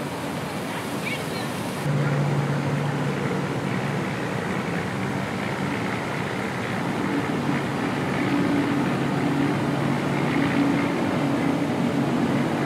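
A low, steady engine drone over a constant rushing noise. It gets suddenly louder about two seconds in, and the drone's pitch shifts slightly later on.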